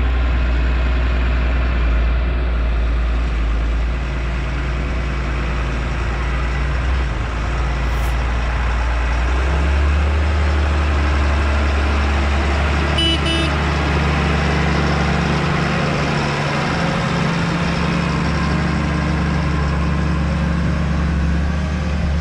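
Diesel engine of a rubber-tracked Caterpillar Challenger tractor running steadily as it drives, its note stepping up about ten seconds in. A brief double beep sounds near the middle.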